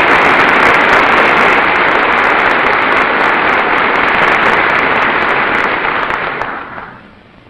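A large audience applauding, a dense, loud patter of many hands clapping that dies away about six and a half seconds in.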